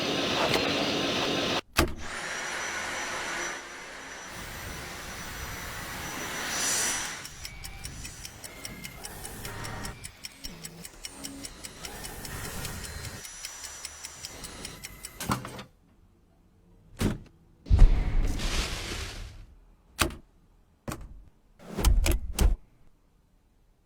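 Vacuum cleaner running in a string of short edited clips, with a stretch of rapid ticking in the middle and, in the last third, several short bursts of motor noise separated by silence.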